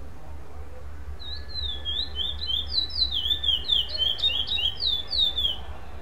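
Male curió (chestnut-bellied seed finch) singing a competition song without repetition: a rapid phrase of clear whistled notes, each sliding downward, about four or five a second. It starts a little over a second in, grows louder, and stops just before the end.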